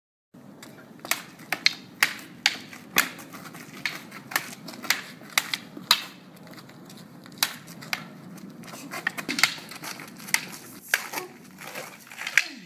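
Thai practice swords clacking together in sharp, irregular strikes, about one or two a second, during Krabi Krabong sword sparring, over a low steady background hum. The sound begins about a third of a second in.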